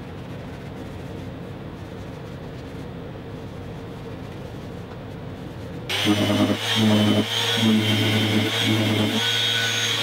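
A steady low hum, then about six seconds in a Festool random orbital sander with its dust extractor hose starts running on a plywood drawer box. The sander is much louder than the hum, and its note comes and goes unevenly as it is worked over the wood.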